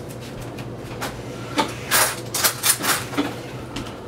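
A few light clinks and knocks of a spoon and kitchen utensils being handled, over a steady low hum.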